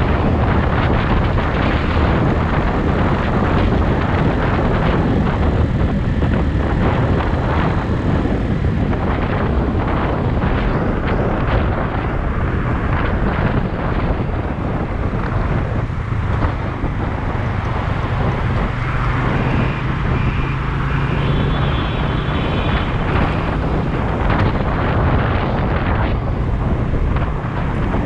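Loud, steady rumble of wind buffeting the microphone, mixed with a vehicle's running noise; a low steady hum joins about halfway through and fades out a few seconds later.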